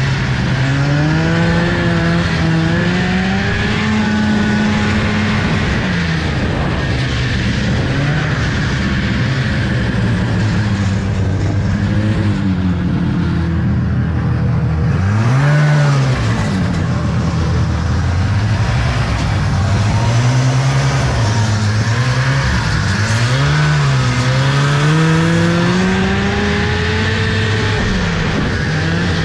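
1975 Arctic Cat Panther 440 snowmobile's two-stroke engine running while riding, its pitch rising and falling repeatedly with the throttle, with a quick rev up and back down about halfway through.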